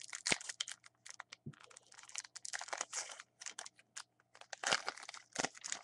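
Plastic foil wrapper of a baseball card pack being torn open and crinkled, a run of quick, irregular crackles and rustles.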